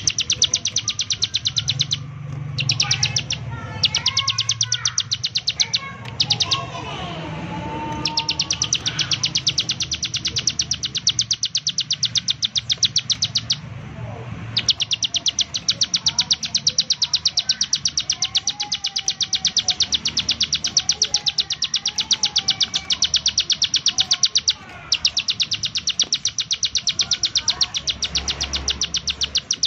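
Ciblek sawah (a prinia) singing its rapid 'nembak' song: long trains of fast, sharp, high repeated notes, each train running several seconds, with short breaks between them. Softer warbling chirps sound underneath.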